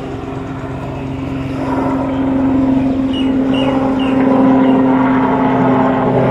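Helicopter flying overhead: a steady rotor chop and engine hum, growing louder over the first few seconds as it comes nearer.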